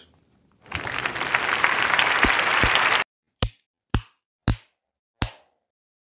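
A burst of applause that cuts off abruptly after a little over two seconds, followed by four sharp single hits spaced roughly half a second apart.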